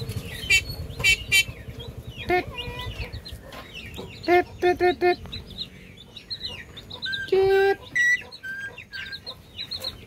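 Javan myna (jalak kebo) giving a run of short, squawky clucking calls, often two to four in quick succession, with a longer harsh buzzy note about seven seconds in.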